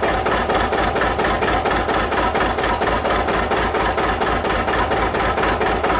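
Engine idling steadily with an even, rapid beat of about seven pulses a second.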